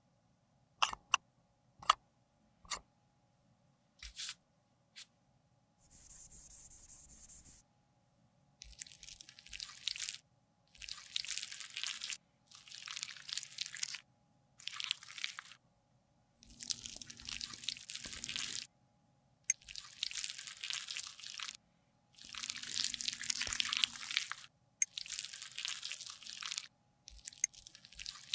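A brush and a metal spatula working and scooping soft pink Vaseline Lip Therapy balm out of its tin. The sticky, wet-sounding scraping comes in repeated strokes of a second or two each with short pauses, after a few sharp clicks from handling the tin in the first seconds.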